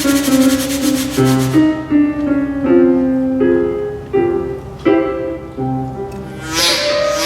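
Piano accompaniment for a silent cartoon, playing a light run of separate notes. A fast, even percussion effect runs over it and stops about a second and a half in, and a short noisy swish comes near the end.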